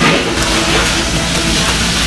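Background music, with tone lines held steady, over a continuous scraping noise from a spatula stirring chili-powder seasoning in a plastic tub.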